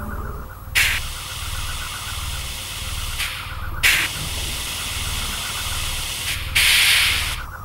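Short, sharp bursts of hissing, like gas or spray jetting out: one about a second in, one near four seconds, and a longer one near the end. Under them runs a low pulsing mechanical drone.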